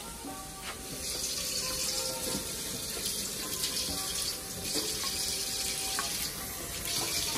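Cold water running from a kitchen tap into a bowl, a steady rush that starts about a second in.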